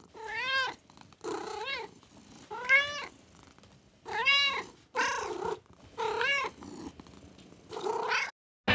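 A cat meowing over and over: seven separate meows about a second apart, each rising and then falling in pitch.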